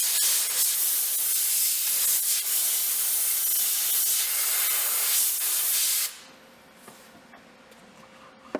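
Welding arc crackling and hissing steadily on thin sheet metal as a patch panel is welded in, then cutting off abruptly about six seconds in.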